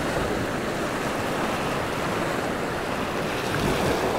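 Ocean surf washing and breaking against a rocky shore, a steady rush of water.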